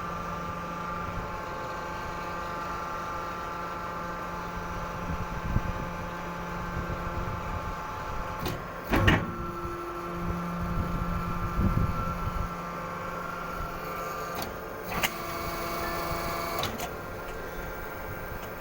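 Hydraulic scrap metal baler running with a steady pump hum whose tones change a couple of times as it works, and a few sharp metal clanks about 9 seconds in and again around 15 and 17 seconds.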